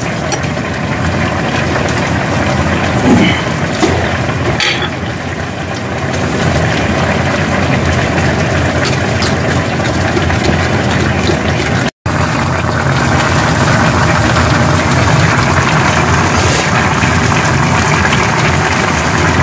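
A loud, steady rushing hum with a low drone, like a kitchen fan or appliance running, with a couple of light clicks in the first five seconds. It cuts out for an instant about twelve seconds in and comes back slightly louder.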